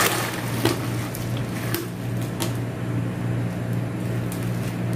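Plastic packet crinkling a few times as small chocolate pieces are tipped out into a hand, over a steady low machine hum.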